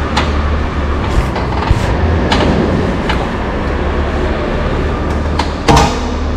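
Royal Enfield Himalayan BS6 with a low steady rumble and a run of sharp knocks about once a second, then one louder clunk near the end: the rear shock absorber knocking, a fault that feels like something is going to break.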